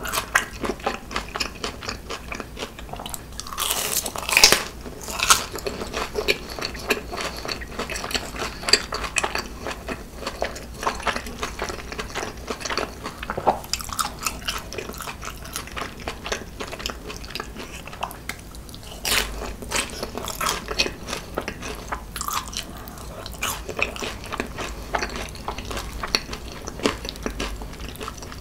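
Close-miked eating sounds: crunching bites and chewing of crispy fried food, first a fried cheese ball and then sauce-coated fried chicken. Many sharp little crunches run throughout, with a few louder bites.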